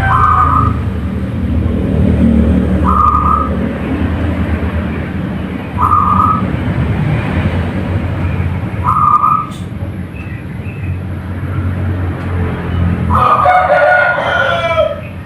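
Short single bird notes repeating about every three seconds, then a rooster crowing for a couple of seconds near the end, over a steady low rumble.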